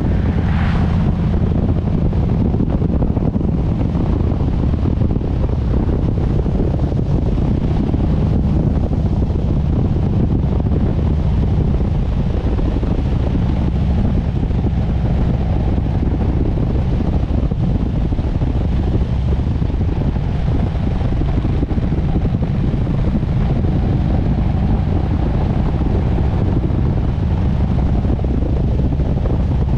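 Harley-Davidson Sportster S V-twin engine running steadily under way at cruising speed, with wind noise over the microphone. A brief higher-pitched sound comes about half a second in.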